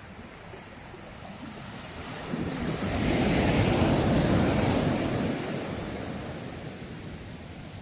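Ocean surf: a wave builds about two seconds in, breaks with a loud wash, and fades away over the next few seconds.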